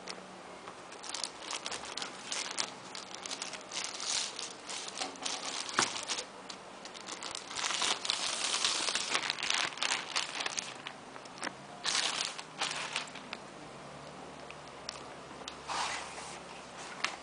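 Plastic packaging on a keyboard box crinkling and tearing as it is handled and unwrapped. It comes in irregular crackly bursts, most sustained about eight to ten seconds in.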